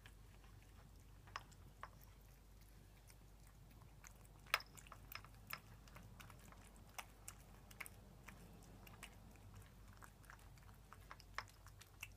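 A cat chewing canned cat food from a bowl: quiet, irregular wet clicks and smacks, the sharpest about four and a half seconds in.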